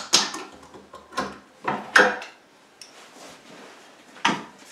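Wooden false drawer front of a sink vanity clunking against the cabinet frame as it is worked free of its staples: a handful of sharp knocks, the loudest at the start and about two seconds in, another near the end.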